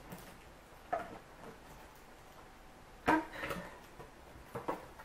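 Handling noise from plastic CD sleeves holding cutting dies as they are shuffled: a few short clicks and rustles, the loudest just after three seconds in.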